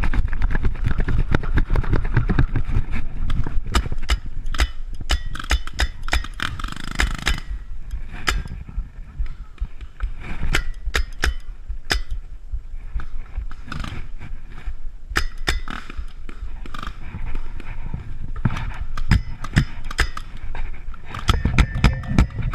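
Handling and movement noise on a worn action camera as a paintball player moves through the field: heavy rumble with many sharp, irregular knocks and pops, busiest for the first seven seconds and again near the end.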